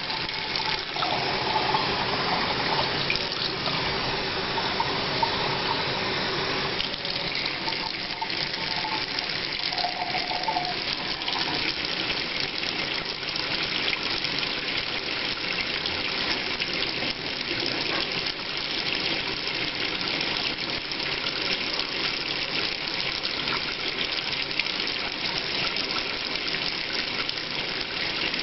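Kitchen faucet running steadily into the sink drain while a measuring cup of muddy salt water is poured out into the sink.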